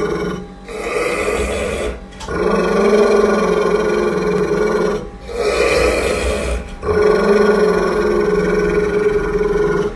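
Pit bull growling deep and long, in sustained growls broken by short pauses for breath about four times, while guarding a raw meaty bone from its owner.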